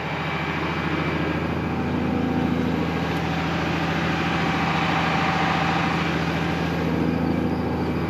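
International Harvester 3288 tractor's six-cylinder diesel engine running steadily, heard from beside the baler it is hitched to.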